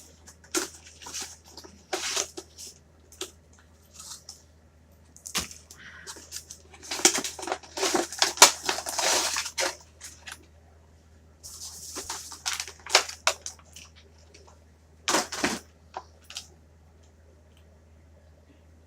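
A boxed PVC figure's cardboard box and plastic packaging being opened by hand: irregular tearing, crinkling and clicking handling noises, busiest in the middle.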